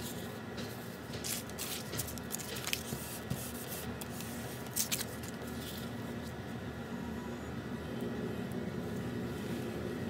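A sheet of painted paper being handled on a table: a few light rustles and taps in the first half, over a steady background hum.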